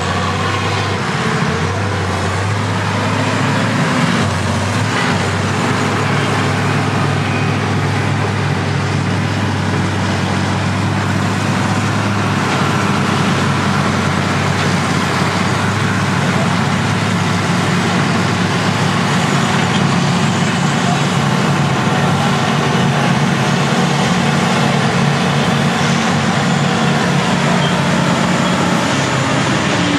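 Big diesel engines of classic earthmoving machines, a crawler bulldozer and a motor scraper, running under load as they work and pass by. A steady low engine drone whose pitch shifts a few times as the machines move.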